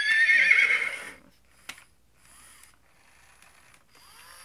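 FurReal Friends S'mores animatronic pony toy whinnying from its speaker for about a second at the start, then faint mechanical whirring and clicking from its motors as its head and mouth move.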